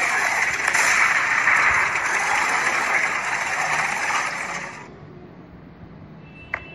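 Tank driving: a steady, noisy run of engine and clattering tracks that fades out about five seconds in.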